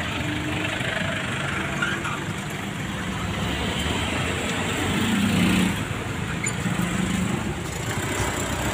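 Street traffic: motorcycles, cars and a box truck passing close by, a steady engine hum that swells about five seconds in.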